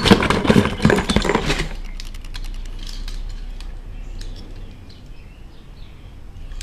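Die-cast metal toy cars clinking and clattering against each other as a hand rummages through a box of them. The clatter is dense for the first second and a half, then thins to a few light clicks.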